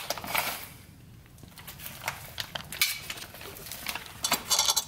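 Scattered metallic clinks and rattles of hand tools and exhaust hardware being worked under a car, with a quick flurry of clinks near the end.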